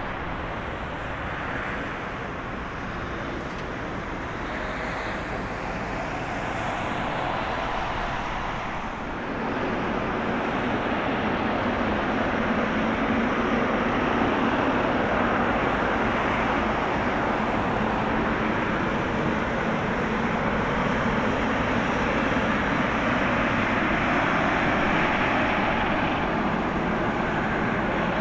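Boeing 777-300ER's twin GE90 turbofans running at low power as the airliner rolls out and taxis after landing: a steady jet rumble and hiss that gets louder about nine seconds in.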